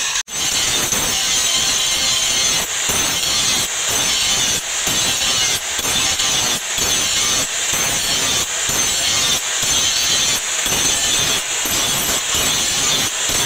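Angle grinder with an abrasive disc grinding the steel blade of a rusty meat cleaver: a loud, steady hiss of disc on metal that dips briefly about once a second. It cuts out for an instant just after the start.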